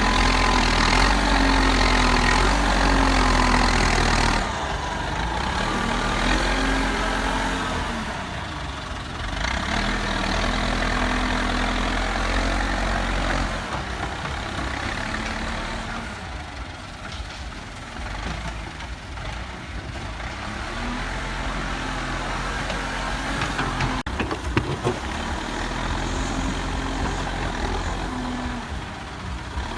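A JCB backhoe loader's diesel engine running, its pitch repeatedly rising and falling as it revs up and down.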